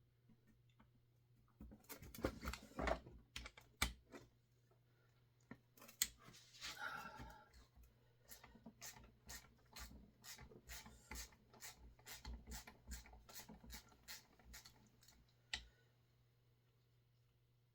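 Hand tools and metal parts handled with a few knocks and clinks, then a socket ratchet clicking in a steady run of about three clicks a second as screws holding the cylinder of a Husqvarna 350 chainsaw are backed out.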